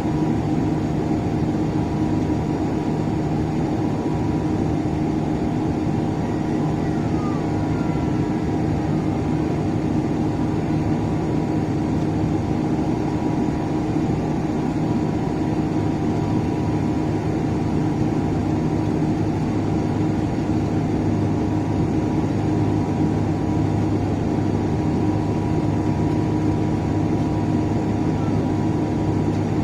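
Dash 8-400 turboprop airliner's two Pratt & Whitney PW150A engines and propellers running with a steady drone made of several held tones over a noisy rush.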